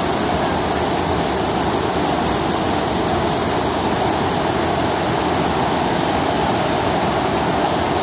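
Tortum Waterfall and the rapids at its foot, water falling and rushing over rocks in a loud, steady rush.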